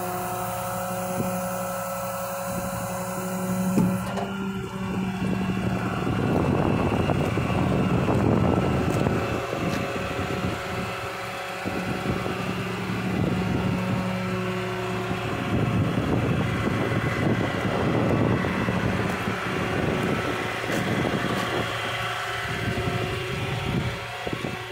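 A 6.7 Cummins diesel rollback tow truck running while its hydraulics tilt and slide the bed back: a steady mechanical hum, with a louder rushing noise joining about four seconds in.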